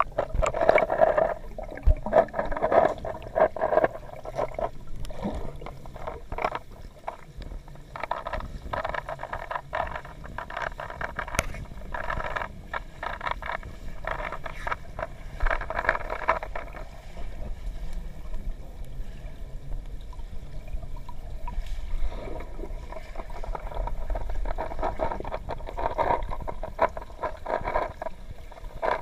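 Muffled underwater sound in a swimming pool: gurgling water with many irregular short clicks and scrapes.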